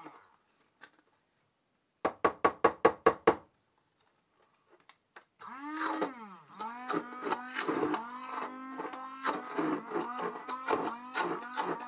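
Immersion blender puréeing cooked beetroot in a pot: the motor stops at the start, and about two seconds in there is a quick run of about nine sharp knocks. About five and a half seconds in the motor starts again, its pitch dipping and rising before it settles into a steady hum that wavers as the blade works through the mash.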